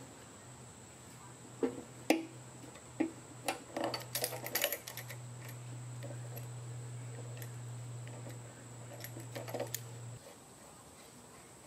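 Locking vise-grip pliers and a broken muffler inlet clicking and rattling, metal on metal, as the threaded inlet is turned counterclockwise out of a lawn mower engine's exhaust port. The small sharp clicks come mostly in the first five seconds, with a few more near the end, over a steady low hum that stops about ten seconds in.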